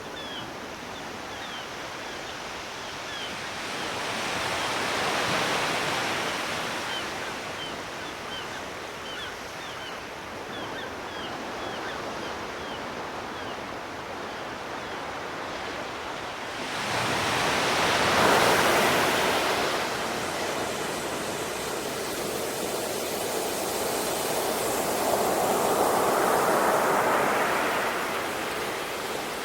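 Sea waves washing in on the shore, swelling and ebbing, with the loudest wave arriving suddenly about two-thirds of the way through. Faint short high chirps come during the first half.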